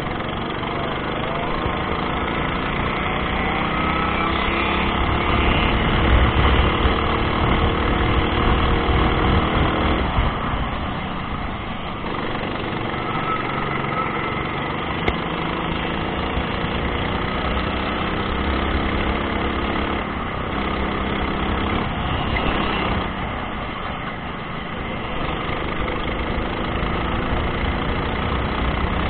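Go-kart engine running hard, its pitch rising and falling over and over as the kart accelerates and lifts off the throttle, easing off twice for corners.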